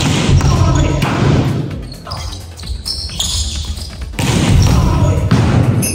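A volleyball rally: the ball being spiked and smacking off the hardwood gym floor, several sharp hits about a second apart, with players calling out.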